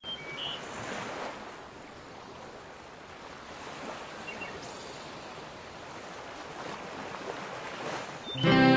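Waves lapping on a shore, heard as a steady wash of water noise with a few faint high short tones. Near the end a string orchestra comes in loudly on a sustained chord.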